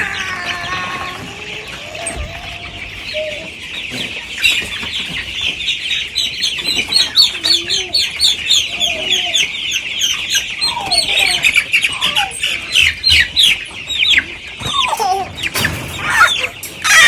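A large flock of almost four-week-old meat-bird chicks peeping constantly: many overlapping quick, high, falling chirps, with a louder flurry near the end.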